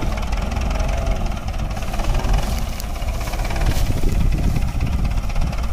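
Hindustan tractor's diesel engine running steadily at low revs, a continuous low rumble.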